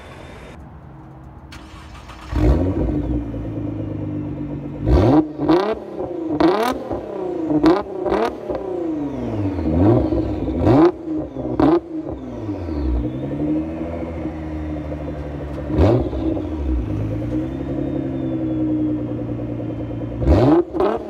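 Nissan GT-R R35's twin-turbo V6, fitted with catless downpipes, a catted midpipe and an HKS Legamax exhaust. It fires up about two seconds in, then idles and is revved in quick free-rev blips over and over, each one rising and falling back.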